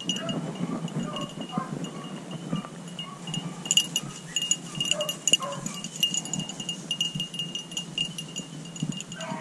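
A small bell jingling in quick, repeated rings, louder from about four seconds in, over rustling and crackling in brush.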